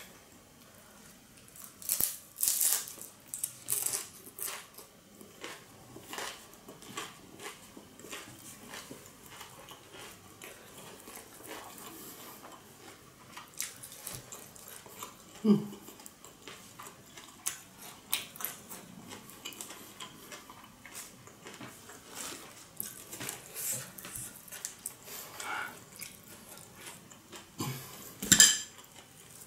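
Close-miked eating: crunching and chewing of fried spring rolls wrapped in lettuce, with scattered short clicks and clinks of tableware against a dipping-sauce bowl.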